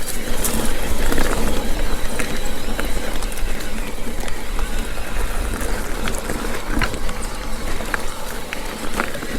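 Mountain bike rolling along a damp dirt trail, heard from a helmet-mounted camera: steady tyre and wind noise with a low rumble, and scattered short clicks and rattles from the bike and trail.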